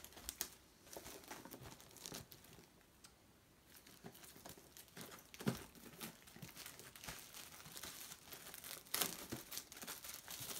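Clear plastic shrink wrap crinkling and tearing as it is peeled off a Blu-ray box set, in irregular crackles with a quieter stretch about three seconds in.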